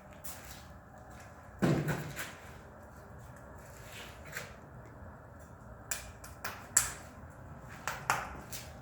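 A few irregular knocks and clatters, the loudest about a second and a half in, then a quick cluster of sharper knocks near the end.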